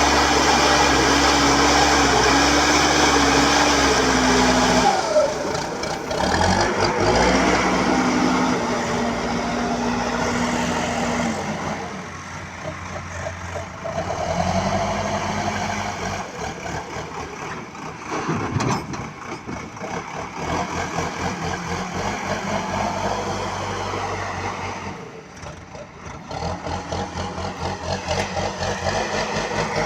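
BULL HD 76 backhoe loader's diesel engine running, its speed shifting up and down several times, with a short drop in level about 25 seconds in.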